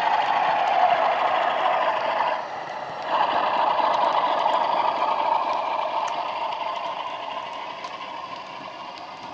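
Sound-fitted Bachmann Class 47 model: its ESU LokSound decoder playing a Class 47 diesel engine sound through a cut-down EM1 speaker. The sound drops away for under a second a little over two seconds in, then comes back and fades steadily as the loco runs past and away, with faint ticks over it.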